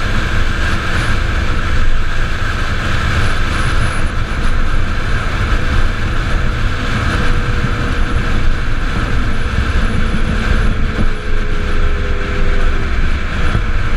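Onboard sound of the Gato del Sol electric solar car driving fast on the track: a steady rush of wind across the body-mounted camera, with a low rumble of tyre and road noise and no engine note.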